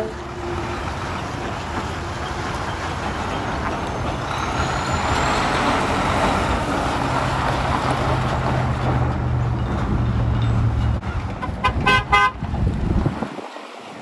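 Diesel dump truck engine running as the truck pulls away, its low drone building and then easing off. Near the end, a quick run of short horn toots.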